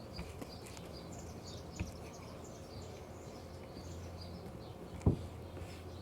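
Small birds chirping quietly and repeatedly in the background, with a few light knocks, the sharpest about five seconds in.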